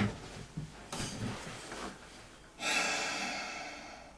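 A man's soft, breathy chuckles, then a long audible exhale through the nose starting about two and a half seconds in and fading away.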